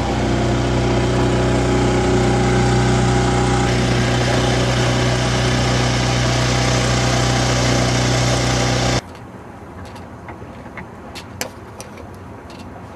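A small sailboat's outboard motor running at a steady speed, with a constant low hum. It cuts off suddenly about nine seconds in, leaving quieter wind noise on the microphone with a few light clicks and taps.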